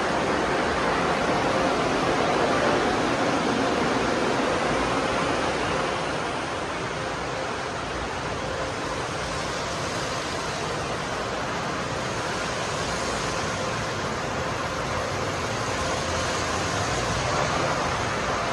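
Automatic conveyor tunnel car wash running: spinning wash brushes and water spray make a steady rushing noise, with a faint steady hum under it that is strongest in the first few seconds.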